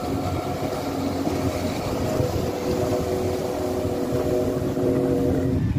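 Several jet skis running at speed across the water: a steady engine drone with overlapping whines at different pitches. The sound changes abruptly near the end.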